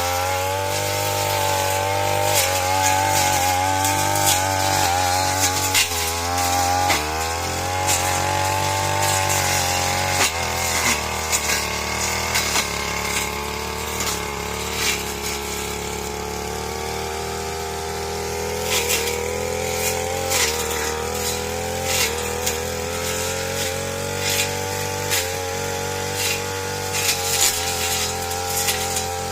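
Two-stroke RedFox grass cutter (brush cutter) engine running under throttle while cutting grass. Its pitch rises and dips, with scattered sharp ticks throughout.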